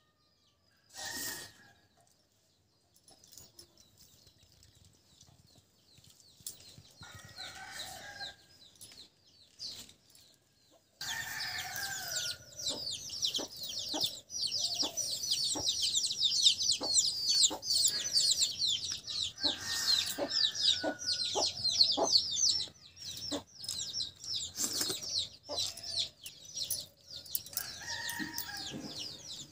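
Birds chirping rapidly and continually, starting abruptly about eleven seconds in, with lower calls now and then and scattered sharp clicks.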